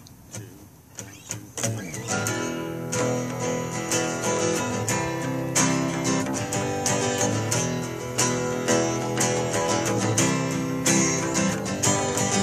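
An acoustic guitar and an acoustic bass guitar playing a song's instrumental intro. A few sparse plucks come first, then steady strummed chords over a bass line from about two seconds in.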